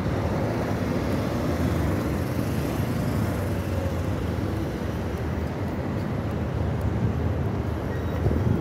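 Steady city traffic noise from cars driving along a wide multi-lane avenue: a low rumble of engines and tyres, swelling slightly near the end.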